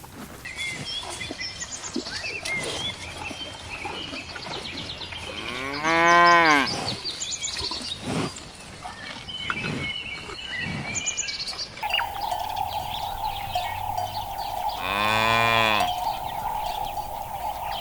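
Cattle mooing: two long single moos, each rising then falling in pitch, about six seconds in and again near the end. Small birds chirp in the background, and from about two-thirds of the way through a steady droning tone joins.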